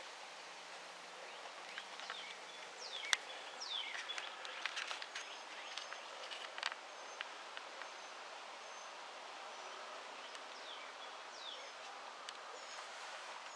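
Faint outdoor background with birds chirping: several short downward-sweeping chirps and brief high notes, and a few sharp clicks.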